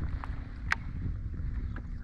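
Steady low wind rumble on the microphone, with one sharp click a little over a third of the way in.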